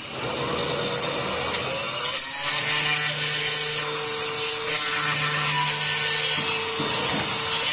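Holztek CNC horizontal drilling machine with its bit cutting a slot into the edge of a wooden door stile: a steady rasp of wood being cut, with a steady motor hum that comes in about two seconds in.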